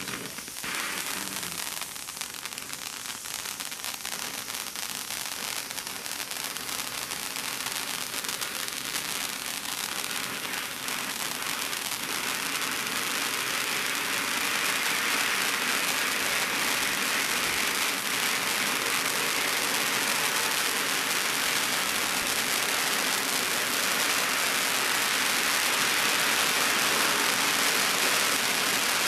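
A ground fountain ("volcano") firework hissing steadily as it sprays sparks, its rushing hiss growing gradually louder as the fountain builds.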